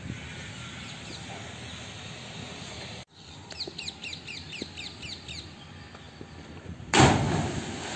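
A bird calls in a quick run of about ten short, falling chirps. Near the end, a loud splash as a man jumping into a deep stone-lined well hits the water.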